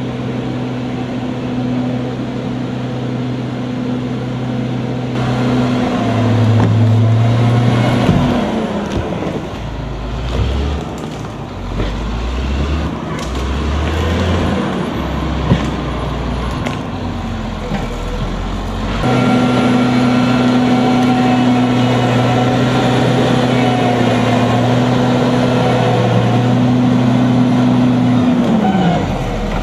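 Heavy diesel engines of military earthmoving vehicles, a tracked bulldozer among them, running loudly as it pushes a fallen tree trunk. The engine note shifts about six seconds in and rises and falls unevenly through the middle, then settles to a steady run for the last third.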